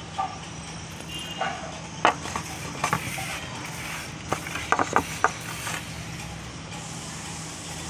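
Wet mouth clicks and smacks from chewing a mouthful of slate-pencil paste. Several sharp ones come between about two and five and a half seconds in, over a steady low hum.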